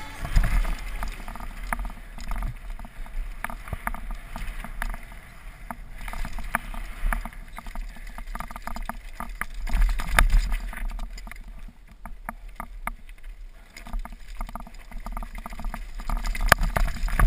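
Downhill mountain bike descending a rocky, rooty dirt trail: a steady rumble from the tyres on the ground, full of sharp clicks and rattles from the bike over bumps. It is loudest near the start and again about ten seconds in, picked up close by a rider-mounted camera.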